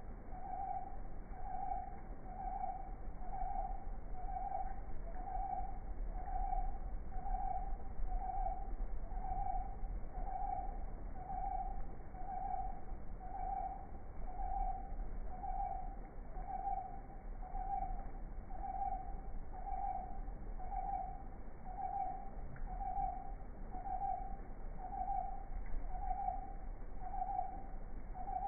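A strange repeating tone: one short note at a single mid pitch, sounding evenly about once a second, over a low rumble.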